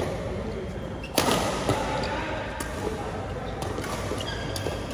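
Badminton rackets hitting a shuttlecock in a rally: a string of sharp hits at irregular intervals, the loudest about a second in.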